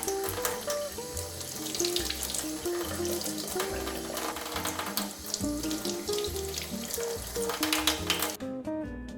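Kitchen tap running while sardines are rinsed under it, with water splashing over the fish; the water cuts off suddenly near the end.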